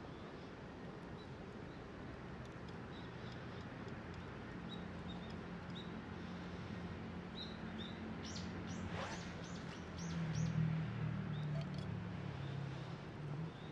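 Small birds chirping in short high notes, with a quick run of calls a little past the middle. A motor vehicle's low hum swells in the second half and is loudest near the end.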